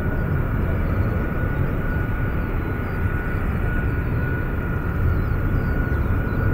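Boeing E-3A Sentry's four TF33 turbofan jet engines running at high power as the aircraft climbs away. It is a steady, loud rumble with a thin, steady whine on top.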